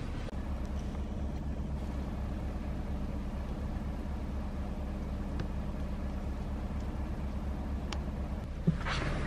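Truck engine running steadily, a low even hum, with a short bump near the end.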